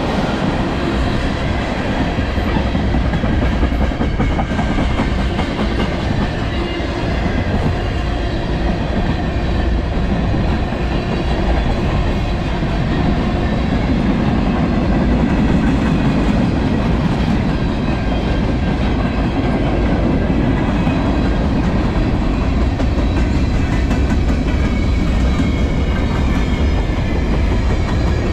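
A long freight train's cars rolling steadily past close by: tank cars, centerbeam flatcars and open-top hoppers with their wheels running over the rails. A dense low rumble carries a few thin steady high tones above it.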